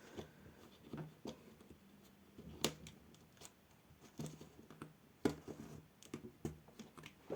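Scattered sharp plastic clicks and snaps of a laptop display bezel being pried off its clips, the loudest about two and a half seconds in and again about five seconds in.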